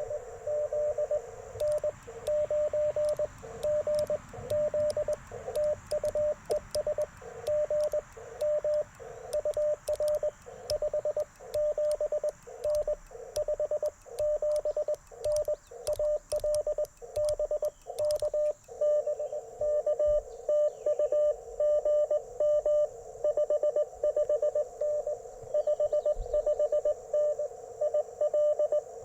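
Morse code from an Icom IC-705 ham radio: a single steady tone keyed in dots and dashes. For most of the first two-thirds it is the sidetone of the operator's own sending, with the clicks of the paddle key. From about two-thirds of the way in, another station's Morse comes through the receiver's hiss.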